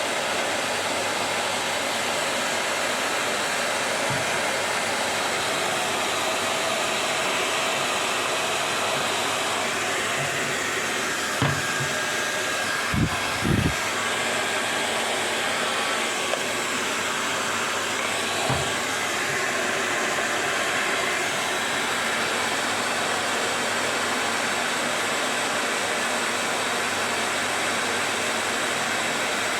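Hand-held hair dryer blowing steadily, heating a piece of plastic bottle to shrink it onto a juicer part. A few dull knocks from handling the part come in around the middle.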